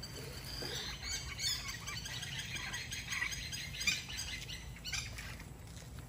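A crowd of small birds chirping together, many short high calls overlapping in a busy chatter that thins out about five seconds in.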